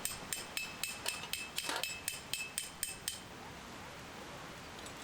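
A hammer striking a metal tent peg, driving it into the ground: about a dozen sharp, ringing blows at roughly four a second, stopping about three seconds in.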